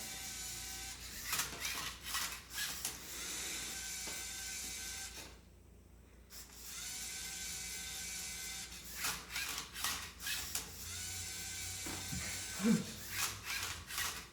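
LEGO EV3 MindCuber robot scanning a Rubik's Cube: its servo motors whir in steady runs as the turntable rotates the cube and the colour-sensor arm moves, with bursts of plastic clicking and clatter. The motors pause briefly about five seconds in, then run again.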